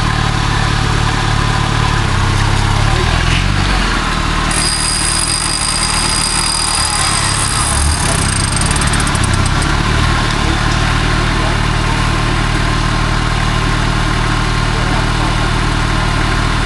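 Off-road 4x4 trial vehicle's engine idling, its revs rising and falling briefly a couple of times. A thin high-pitched whine sounds for a few seconds in the middle and stops with a few ticks.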